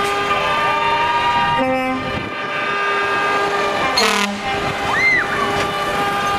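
Truck air horns sounding a long, held multi-note chord, with two short extra horn blasts about two and four seconds in.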